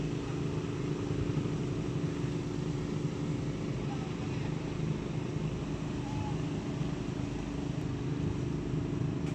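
An engine running steadily at an even, unchanging pitch, like an idle.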